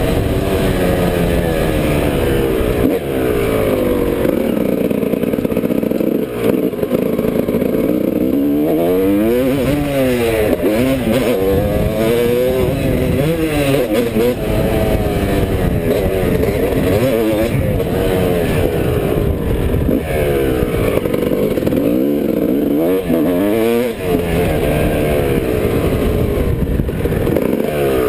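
Off-road vehicle engine at speed, revving up and dropping back over and over as it is worked through the gears around a dirt track, with wind rushing over the camera. It winds down near the end as the ride slows.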